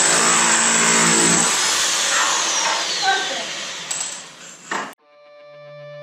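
Small electric jackhammer chiseling up floor tile, a loud dense clatter that cuts off suddenly about five seconds in. Music then fades in.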